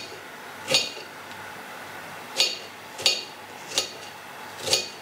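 A knife cuts strawberries on a ceramic plate, and the blade clinks against the plate about five times at uneven intervals.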